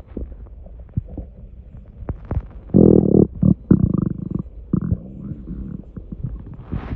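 A human stomach gurgling and rumbling as gas from swallowed air moves through the gut. Scattered small gurgles and pops lead to a loud bubbling gurgle about three seconds in, with a few more gurgles just after it.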